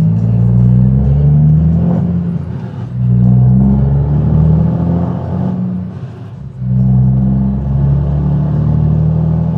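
Tuned Scania truck engine pulling away through the gears, heard from inside the cab, with a big exhaust note. The engine pitch climbs, then drops back briefly about three seconds in and again about six and a half seconds in, where gears are changed.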